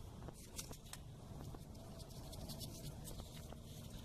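Faint, scattered small clicks and scrapes of a spark plug socket and extension turning the ColorTune glass spark plug into the engine's cylinder head, over low background hiss.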